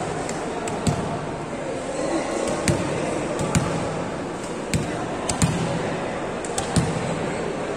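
Volleyball thudding sharply against hands or the court floor about six times at uneven intervals, over a steady background of people talking.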